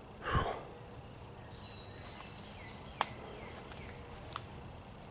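An insect's steady high-pitched trill, starting about a second in and stopping near the end. A brief thump comes just before it, and two sharp clicks fall during it.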